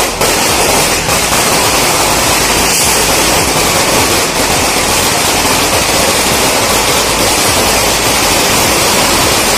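A string of firecrackers going off in a dense, continuous crackle that starts abruptly and cuts off suddenly.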